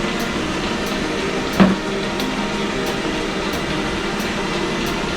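ILIFE V55 Pro robot vacuum running across the floor, a steady whirr of its motor and brushes. There is a single knock about one and a half seconds in.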